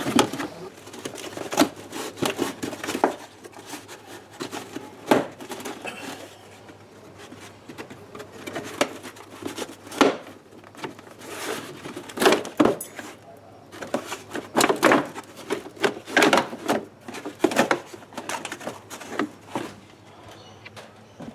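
Irregular clicks, knocks and scraping of hands and tools working at old plastic clips and screws on a vehicle's plastic inner wheel-arch guard.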